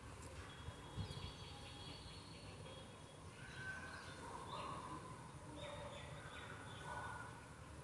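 Soft scrapes and a click of a steel spatula stirring thick rava khichdi in a steel pan, with faint high chirps in the background.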